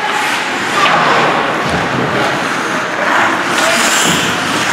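Game ambience: a steady wash of spectator chatter and crowd noise with a few sharp knocks from the play.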